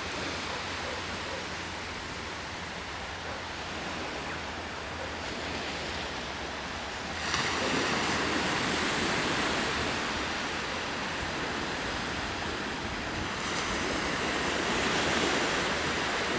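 Small waves breaking on a sandy beach, a steady rushing surf. A wave breaks about seven seconds in and the rush turns suddenly louder, and another swells up near the end.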